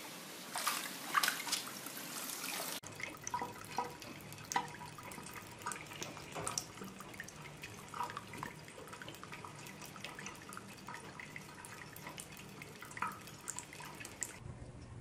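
Water splashing and sloshing for the first few seconds. After a sudden change, light, irregular drips and small splashes of water around a basin drain, over a low hum.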